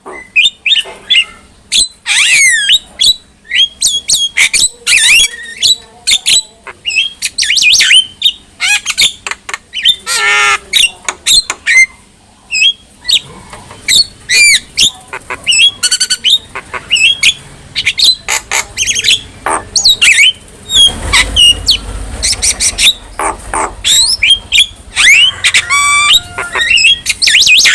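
Javan myna (jalak kebo) singing a fast, unbroken run of varied whistles, glides, chatter and harsh squawks.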